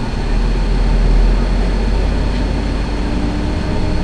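Tour coach running along a city street, heard from inside the passenger cabin: a low engine and road rumble, heaviest for the first couple of seconds and then steady, with a faint thin high whine held underneath.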